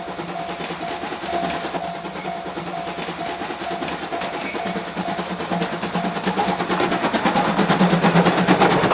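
C12 steam locomotive approaching, its sound growing louder toward the end, with fast, even exhaust beats. Through the first part a tone repeats about twice a second, then fades under the train.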